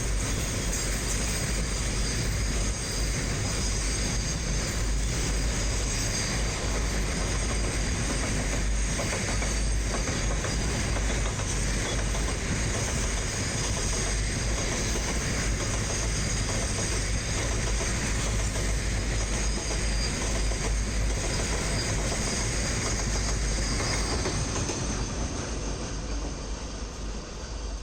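Double-stack container freight wagons rolling past at speed: a steady rush of wheel and rail noise with low rumble and a faint high wheel squeal, easing slightly near the end.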